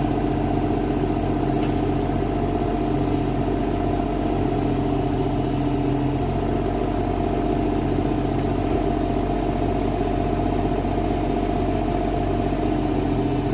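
Kubota mini excavator's diesel engine running steadily.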